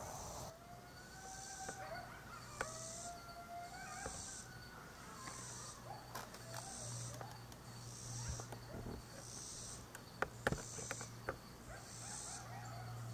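Coyotes howling: long wavering calls that rise and fall in pitch, strongest in the first four seconds and then dropping to fainter, broken calls.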